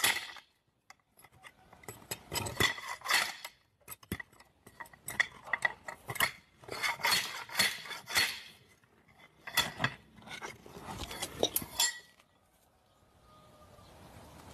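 Repeated sharp metallic clinks in short bursts from a hand-held slide-hammer spike tool being worked into the ground. The strikes stop about twelve seconds in.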